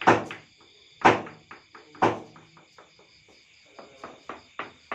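Hammer knocking on a brick wall: a few loud single blows, then a quicker run of lighter knocks, about three or four a second, near the end. Crickets chirp steadily behind.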